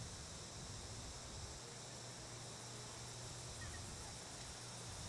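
Faint, steady outdoor ambience at a cricket ground: an even high hiss over a low hum, with no distinct events.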